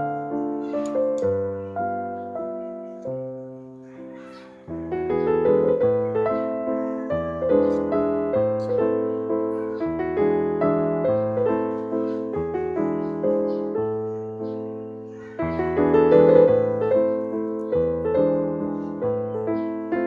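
Background piano music: slow chords and a melody, fading about four seconds in, then starting up again.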